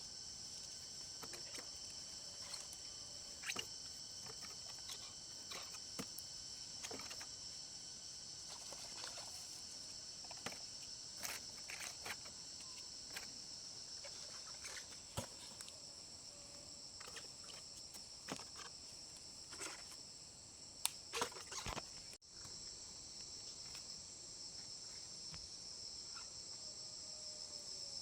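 Steady high-pitched drone of forest insects, crickets or cicadas, with scattered light clicks and snaps through it and a cluster of louder snaps about three-quarters of the way through.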